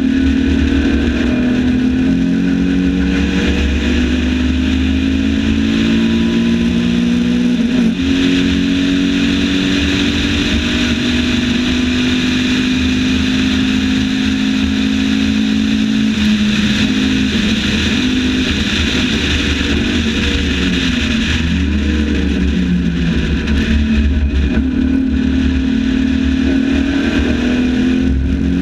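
Onboard sound of a Lotus 7 replica's engine pulling hard at high revs at full speed, with its pitch dipping briefly about eight seconds in and wavering down and up again about three-quarters of the way through. A steady rush of wind runs beneath it in the open cockpit.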